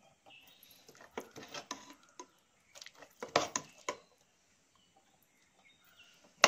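Steel ladle scraping and clinking against a pressure cooker while curry is scooped out and served into a clay bowl. The clatter comes in two bursts, the second louder, with one sharp clink at the very end.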